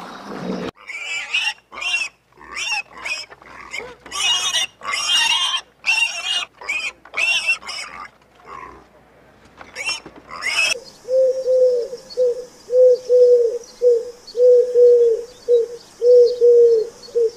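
Piglets squealing and grunting in a run of short, high bursts, with a pause near the middle. From about eleven seconds in, a dove coos in a steady run of short, low notes.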